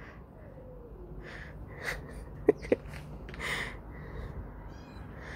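Young kitten mewing faintly while it is held and handled, with scuffling and two sharp clicks about two and a half seconds in.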